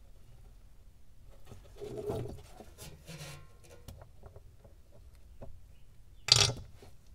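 A cloth shop rag wiping and rubbing around the filler plug on a Ford Model A transmission case, making quiet scattered handling noises. A short, loud rush of noise comes a little after six seconds in.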